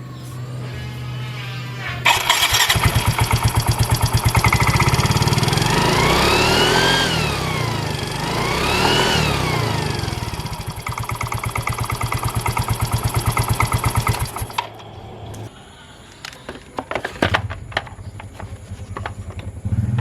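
Automatic scooter engine revved up, with a whistle from a home-made turbo-noise plate by the CVT cooling fan rising and falling in pitch with the revs twice. The engine stops about two-thirds of the way in, followed by a few scattered clicks.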